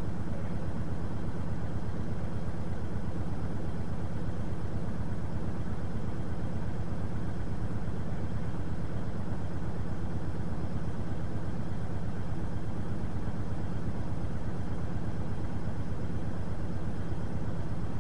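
Truck engine idling with a steady low drone that does not change.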